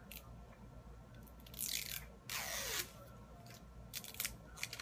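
A sealed eyeliner wrapper being torn open by hand: two loud tearing, crinkling bursts about one and a half and two and a half seconds in, among small clicks and rustles.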